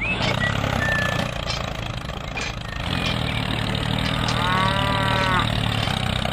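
Tractor engine running steadily with a low chugging rumble, which grows fuller about three seconds in. A brief high whistle comes near the start, and a pitched call rises and falls about four and a half seconds in.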